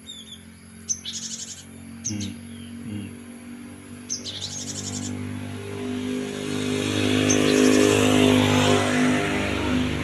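Cinereous tits (gelatik batu) give short, rapid chattering calls about a second in and again around four seconds. Meanwhile a passing motor vehicle's engine grows steadily louder through the second half.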